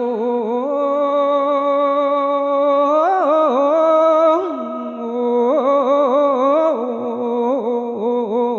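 A single voice chanting Isan thet lae, the melodic Thai-Lao sung sermon, drawing out long wordless notes with warbling ornamental turns. The pitch steps up about three seconds in and drops back a second and a half later.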